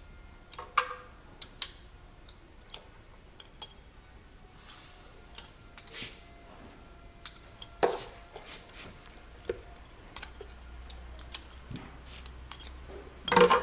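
Scattered metallic clicks and clinks of hand tools on an engine's rocker-arm adjusters while the valve clearances are being set, the sharpest about a second in, near the middle and just before the end.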